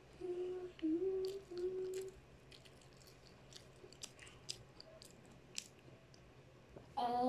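A voice humming three short steady notes, then a scattered run of small crisp clicks and crunches from chewing a crunchy Hansel biscuit. The humming starts again at the very end.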